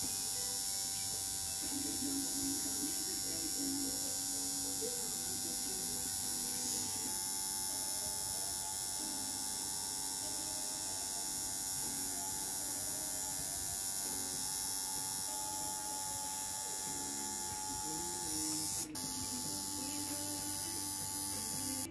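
Tattoo machine buzzing steadily as the needle works through the skin, laying outlines. It breaks off briefly about 19 seconds in.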